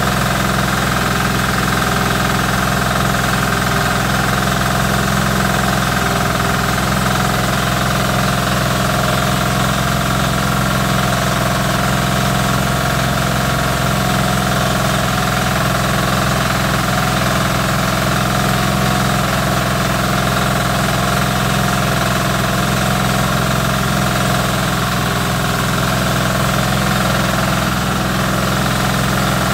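Small diesel engine running steadily under load, driving a rice milling machine with paddy fed from the hopper.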